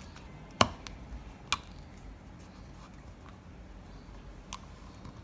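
A few short, sharp clicks: a loud one about half a second in, another about a second later and a faint one near the end, as a penknife cuts the squashed end off a thin RG179 coax cable.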